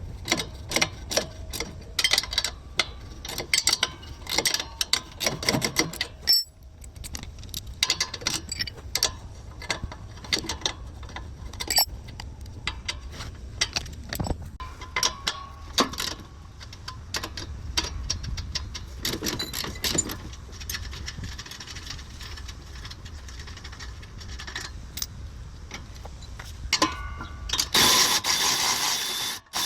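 Hand tools working rusted exhaust bolts: a socket wrench or ratchet clicking and metal clinking in uneven runs over a steady low hum. Near the end comes a louder rushing noise lasting about two seconds.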